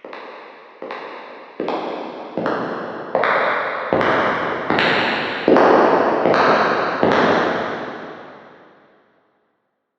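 Footsteps walking at a steady pace, about one step every 0.8 s, each step echoing with a long reverberant tail. The steps grow louder as they approach, stop after about seven seconds, and the last echo fades out.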